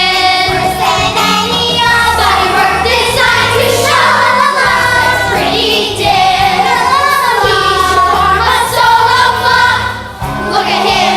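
A chorus singing a show tune over instrumental accompaniment, with long held notes.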